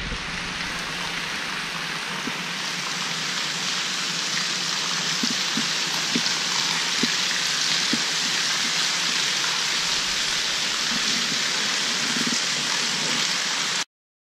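Steady hiss of splashing water, with a few faint taps; it cuts off suddenly near the end.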